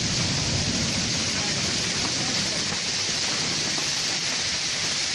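Heavy rain mixed with small hail pelting wet pavement, a steady, dense hiss.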